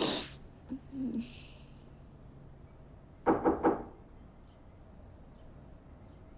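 A person crying quietly: a sharp sniff, a shaky breath about a second in, then a short sob of three or four catches about three seconds in.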